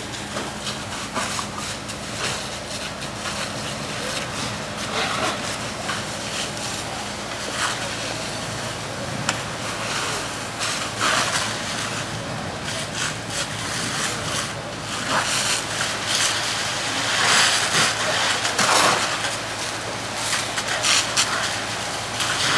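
A large motorhome fire burning with a dense rushing sound and many irregular crackles and pops, growing louder in the second half. A steady low engine hum runs underneath and drops in pitch about eight seconds in.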